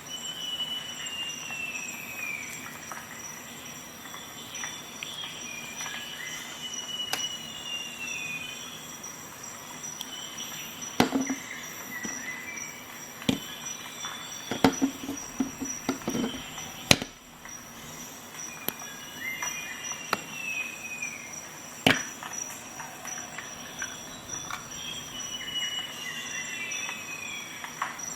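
Sharp single clicks of a Victorinox Swisschamp XLT Swiss Army knife's tools snapping on their backsprings, five or so spread out, with a brief rattle of handling in the middle. Behind them a bird repeats a falling whistled phrase, over a steady high-pitched insect-like tone.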